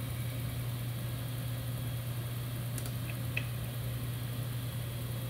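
Brown & Sharpe No. 1 cylindrical grinder running through dry spark-out passes: a steady low hum from the grinding wheel and drives, with a few faint light ticks about halfway through.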